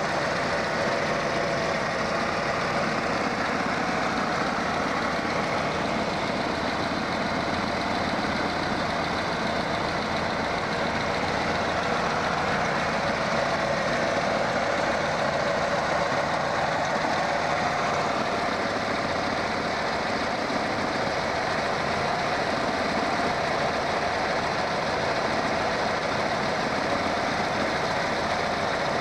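A 1981 Chevrolet Citation's four-cylinder engine running steadily at an even speed, with no revving. It is heard through a worn, low-quality mono VHS camcorder recording.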